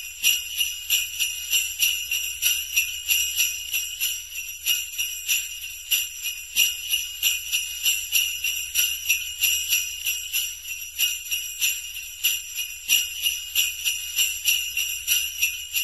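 Sleigh bells shaken in a steady rhythm, about three jingles a second, over a faint low hum.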